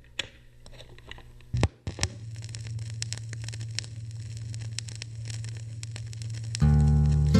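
Crackling noise with scattered sharp clicks over a low steady hum, slowly growing louder, as the opening of a music track. Near the end the music comes in with plucked guitar and bass.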